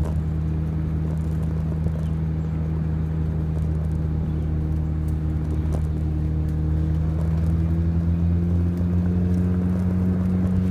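R53 Mini Cooper S supercharged 1.6-litre four-cylinder heard through a one-ball aftermarket exhaust at low speed in 2nd gear: a steady, deep exhaust drone that climbs slightly in pitch and loudness in the second half as the car gently accelerates.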